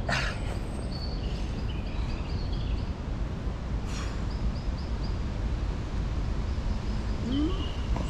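Small birds chirping in short, high, repeated phrases over a steady low rumble, with a brief click about four seconds in.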